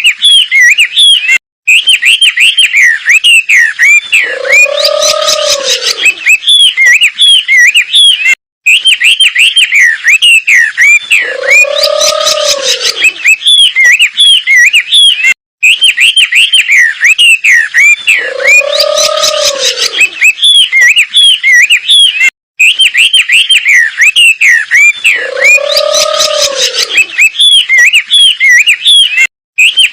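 Wambi bird song from a looped song-training recording: fast, continuous chirping notes, with a lower arched hoot about every seven seconds. The loop repeats, broken by a brief silent gap about every seven seconds.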